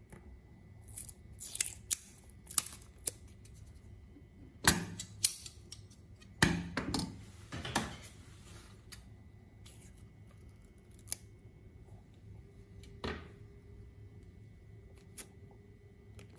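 Roll of clear adhesive tape being handled: fingernail clicks while picking at the roll's edge, then a few loud rips as tape is pulled off the roll a little under halfway in, and one shorter rip later.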